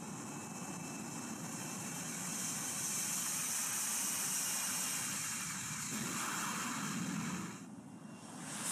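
F-35B fighter jet's engine running at high power on its takeoff run for a short takeoff up a ski-jump ramp. It is heard as a steady, fairly faint rushing hiss that swells slightly in the middle and dips briefly near the end.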